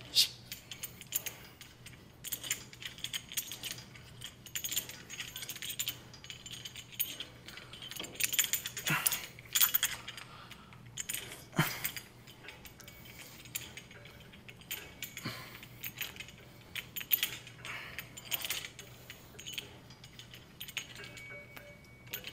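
Scattered metallic clinks and clanks of gym weights and equipment, with a couple of louder knocks about nine and twelve seconds in, over a faint steady hum.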